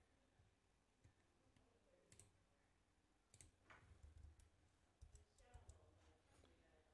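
Near silence with a scattering of faint computer mouse clicks, mostly in the second half, as wall segments are placed in the drawing software.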